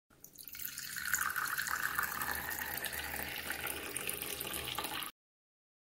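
Coffee pouring in a steady stream into a cup. It fades in over the first second and cuts off abruptly about five seconds in.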